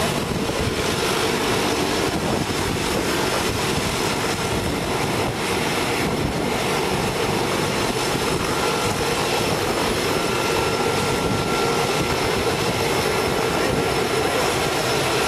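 Steady drone of a skydiving jump plane's engine and propeller, heard loud inside the cabin during the climb.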